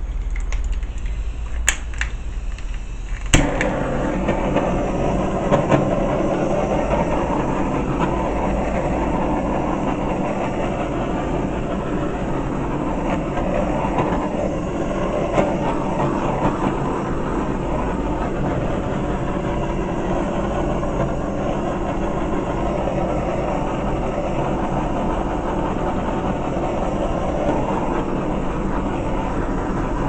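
A handheld torch: a few sharp igniter clicks, then it lights about three seconds in with a click and runs with a steady, even rush of flame, heating the wet acrylic pour so that cells rise.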